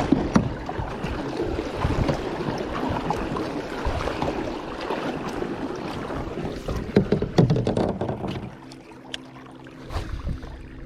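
Water and wind noise with repeated knocks and clatter around a kayak while a hooked fish is being fought. About eight and a half seconds in it drops quieter, leaving a steady low hum and a few sharp clicks.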